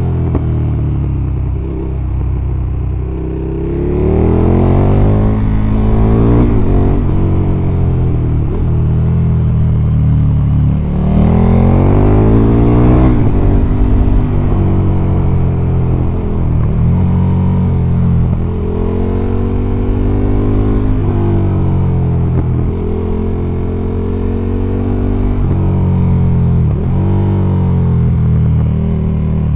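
KTM 1290 Super Duke R's V-twin engine, revs climbing and dropping again and again as the rider accelerates and backs off through the bends. There are two strong pulls, about four and eleven seconds in.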